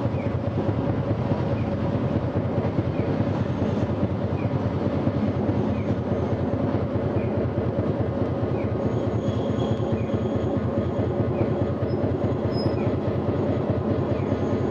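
Tosaden Kotsu 700-series streetcar running along the line, heard from inside the car: a steady rumble of motors and wheels on rail with a light tick about every three quarters of a second. A faint high whine joins about nine seconds in.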